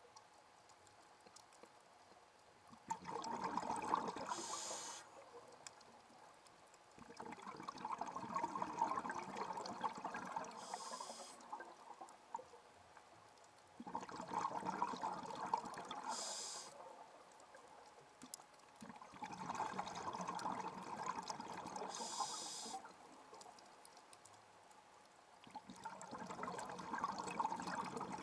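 Scuba diver breathing through a regulator underwater: a burble of exhaled bubbles about every five to six seconds, each ending in a short high hiss.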